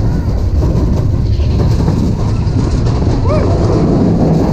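Mine-train roller coaster car running along its track: a steady, loud rumble and rattle from the wheels and the car.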